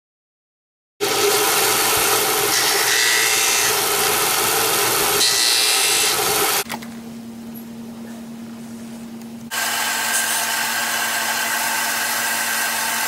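Bench disc sander running, with a piece of wood pressed against the spinning sanding disc in a loud, rough rasp. After about six seconds it drops to a quieter steady motor hum, then about three seconds later a louder steady motor sound comes back. The first second is silent.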